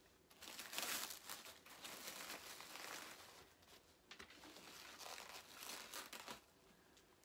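Packing wrap crinkling and rustling as it is pulled off and handled. It comes in bouts, is loudest about a second in, and stops about six seconds in.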